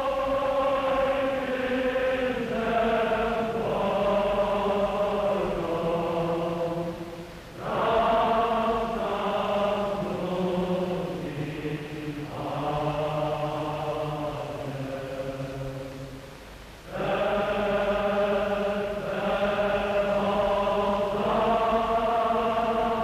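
Choir singing a slow chant of long held notes, in three phrases with brief breaks about eight and seventeen seconds in.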